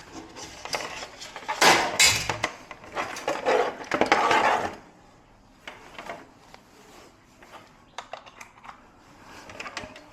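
Hard objects being handled, clattering and clinking, loudest in the first half, then a few scattered light clicks.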